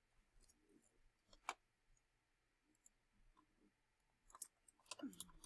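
Near silence with a few faint, sharp clicks, the clearest about a second and a half in and several more near the end.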